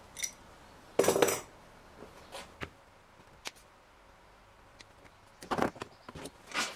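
Hand tools and a cable being handled on a wooden workbench: scattered knocks and clatters, the loudest a short clatter about a second in, with more near the end as pliers are set down.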